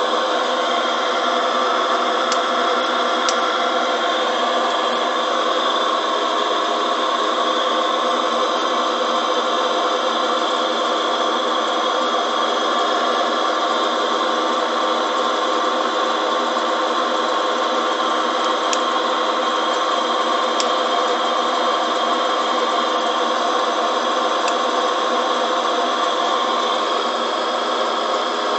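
Drill press driven by a three-phase induction motor fed from a frequency converter, running steadily with an even hum and whine of several steady tones. A few faint ticks come through it.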